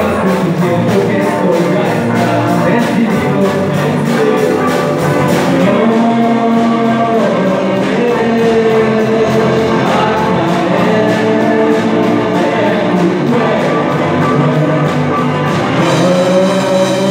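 Live rock band playing a cover song, with a singing voice over the band and a steady high ticking beat about four times a second.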